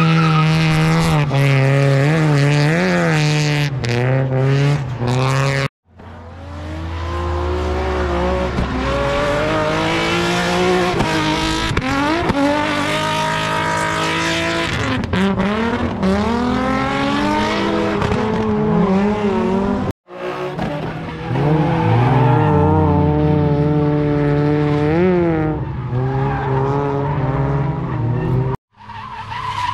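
Drift cars sliding, their engines held at high revs with the throttle worked up and down, over tyre squeal. The sound cuts out abruptly three times where separate clips are joined.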